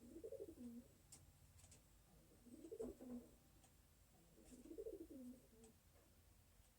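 Faint dove cooing: three similar coos about two seconds apart, each rising and then falling in pitch.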